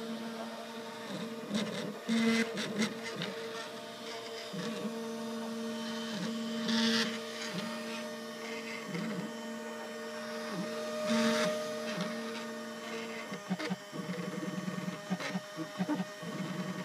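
Self-built Ultimaker-style 3D printer printing: its stepper motors run in several steady tones that dip and break off as the print head changes direction. There are short hissy bursts about two, seven and eleven seconds in, and the tones turn choppy near the end as the moves get shorter.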